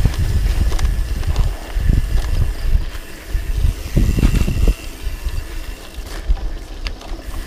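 Wind buffeting the microphone over a low, uneven rumble from a hardtail mountain bike rolling fast along a bumpy dirt trail, with scattered knocks and rattles as it goes over rough ground, heaviest about four seconds in.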